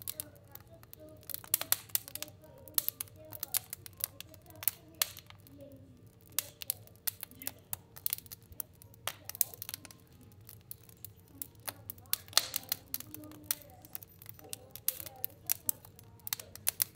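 Fire burning in a stove, crackling with sharp irregular pops over a steady low hum.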